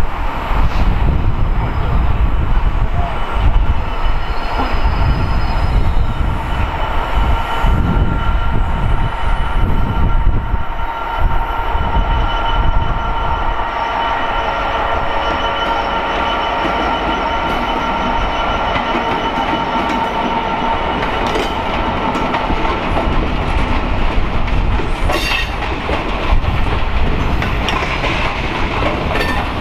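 A diesel freight locomotive hauling a long train of coal hopper wagons past at low speed: a deep rumble at first, then the wagon wheels squealing with steady high tones through the middle, and clicks of wheels over rail joints near the end.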